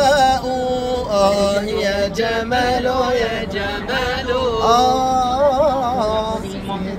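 Men singing an unaccompanied Arabic madih, a praise song for the Prophet, in long, ornamented melismatic phrases with wavering held notes.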